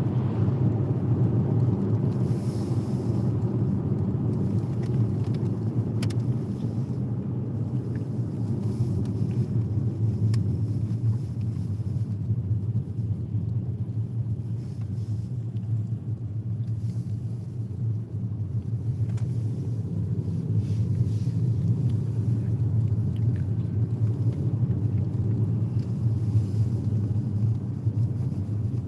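Steady low rumble of a car's road and tyre noise, heard from inside the cabin while driving.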